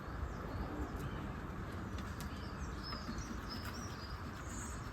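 Birds chirping in short, faint calls, mostly in the second half, over a steady low background rumble, with a few faint clicks.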